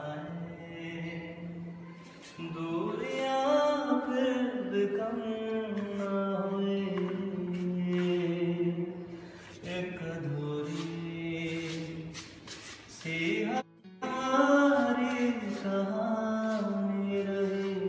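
A man singing solo: one voice in a slow melody of long held, bending notes, with a short break about two-thirds of the way through.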